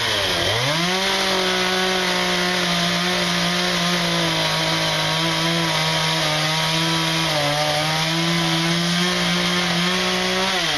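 Stihl two-stroke chainsaw revs up about half a second in and holds at high speed while its chain cuts detail into a small western red cedar carving, the pitch dipping slightly under load. It drops back off full throttle at the end.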